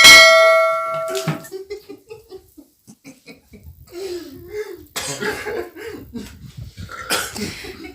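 Coughing and laughter after chugging fizzy soda. It opens with a loud sudden burst, followed by a steady high tone lasting about a second and a half.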